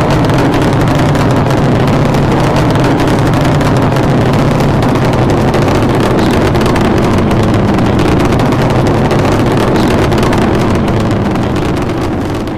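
A loud, steady engine roar, dubbed in as the rocket sled's sound effect. It holds even throughout and begins to fade near the end.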